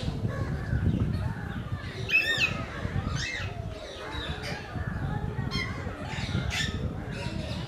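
Parakeets calling: several short rising-and-falling calls over a steady low background rumble.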